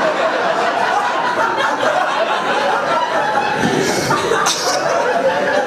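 Audience laughing.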